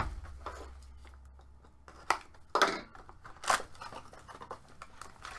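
Sealed trading-card box being cut open: a thump at the start, then a few short sharp snips and rips of wrapping and cardboard being handled.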